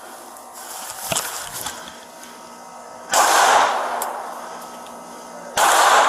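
Two gunshots about two and a half seconds apart, each a sudden loud report trailing off over a second or so. A fainter sharp click comes about a second in.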